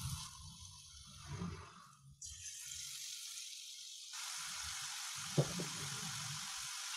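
Batter-coated potato pieces sizzling as they deep-fry in hot oil in a pan, a steady hiss that drops away near two seconds and returns stronger about four seconds in. A single sharp click a little past five seconds.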